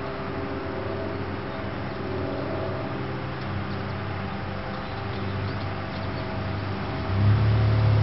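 Steady low engine hum made of several held pitches, getting clearly louder about seven seconds in.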